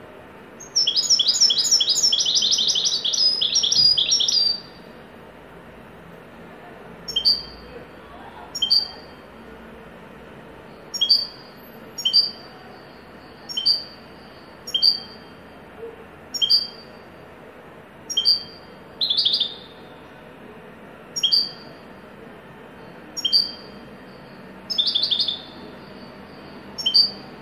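European goldfinch singing in the 'haddadi' style, a song type named by fanciers. A burst of rapid twittering starts about a second in and lasts about four seconds. After that come sharp single notes, repeated about once a second, with a short twittering flourish near the end.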